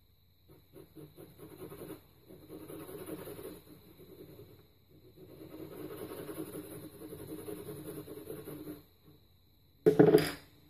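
HB graphite pencil scratching on paper: quick short strokes at first, then two longer runs of steady back-and-forth shading. Just before the end, a short sharp knock, the loudest sound.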